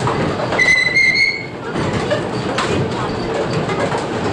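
Wooden windmill machinery running with a steady rumbling clatter, and a high squeal lasting about a second, starting about half a second in.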